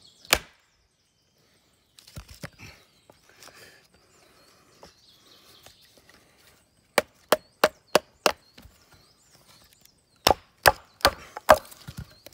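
A wooden mallet batoning the spine of a 1075 carbon steel bushcraft knife down through a log: one sharp knock, a few softer ones, then two quick runs of about five knocks each. The last run splits the log.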